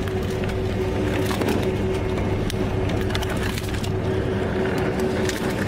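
Live southern rock lobsters crackling and clattering as they crawl over each other and the cray pot's wire mesh, a dense run of small clicks. A boat engine hums steadily underneath.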